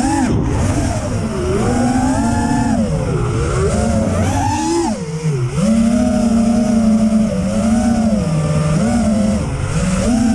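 Brushless motors and propellers of an FPV freestyle quadcopter (EMAX ECO 2306 1700 kV motors, 6S), heard from the onboard camera. They whine loudly, the pitch rising and falling again and again with the throttle, with a deep drop and recovery about halfway.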